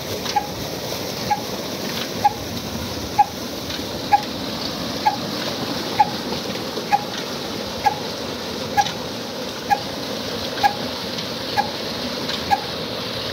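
Old Ruston Hornsby diesel engine running its tubewell pump by belt, with a sharp, regular tick about once a second over the steady rush of pumped water pouring from two outlet pipes into a tank.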